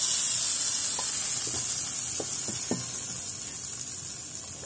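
Tadka of hot oil with dried red chillies and red chilli powder sizzling on top of kadhi just after it is poured in: a steady hiss that slowly dies away, with a few faint clicks.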